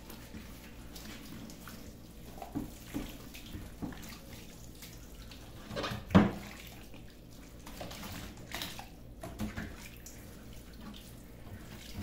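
Tap water running into a stainless-steel sink while a plastic refrigerator compartment is washed by hand under it. A few short knocks of the plastic against the sink, the loudest about six seconds in.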